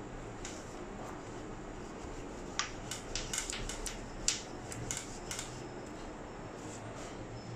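Wooden rolling pin clicking and knocking against a granite countertop as a round of dough is rolled out, a quick run of light clicks in the middle few seconds over a low steady background hum.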